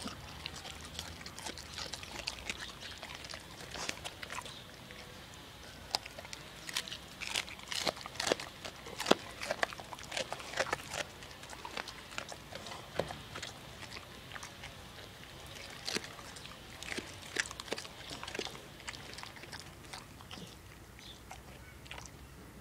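Staffordshire bull terrier chewing raw red cabbage: irregular crunches and chomps, thickest in a run around the middle.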